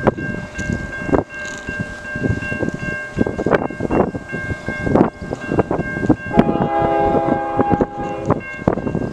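Wind buffeting the microphone in gusts, with a steady high ringing tone underneath. About six seconds in, the horn of the approaching CN freight train's diesel locomotive sounds in the distance, a chord held for about two seconds.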